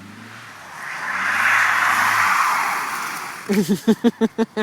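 Mazda Miata's four-cylinder engine running as the car slides past on wet pavement, with a hiss of tyres and water spray that swells about a second in and fades away by about three seconds.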